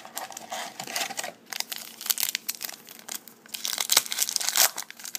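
Crinkling and tearing of a trading-card pack's foil wrapper as it is opened and handled, in irregular crackly rustles that grow louder toward the end.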